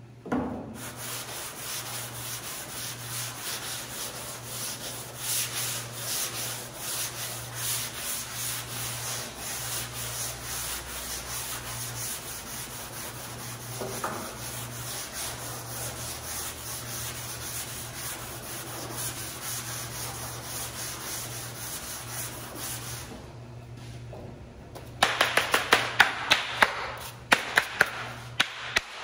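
Hand block sanding on a primed truck bed panel: a sanding block drawn back and forth over the primer in steady rapid strokes. The strokes pause a few seconds from the end, followed by a quick run of sharp taps.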